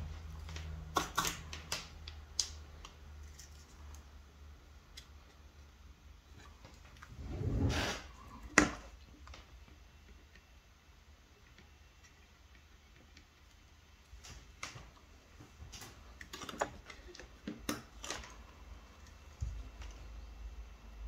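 Scattered faint clicks and taps of hand-soldering a component to a small circuit board, with the soldering iron tip and solder wire touching the pads and pins. A short soft rush of noise comes about eight seconds in, followed by one sharper click.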